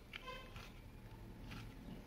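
Faint soft, wet dabbing of fingers stirring lemon juice and coconut oil together in a bowl, with a brief faint squeak near the start.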